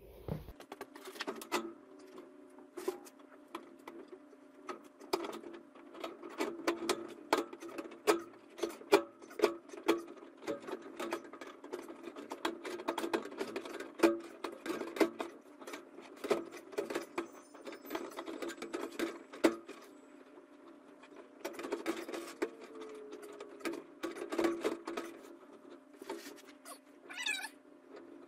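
Irregular clicking and clattering of a flexible corrugated metal chimney liner being handled and worked down the flue, over a steady hum, with a brief wavering squeak near the end.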